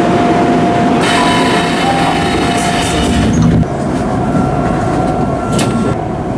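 Tokyu 3000 series electric commuter train heard from on board, with a steady thin whine. A hiss with fine high tones comes in about a second in and cuts off after three and a half seconds, when the overall level drops a little.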